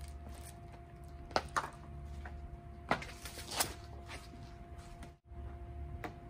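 A few light knocks and clicks as a plastic bumper spoiler piece is handled and set down on a concrete driveway, over a steady faint hum.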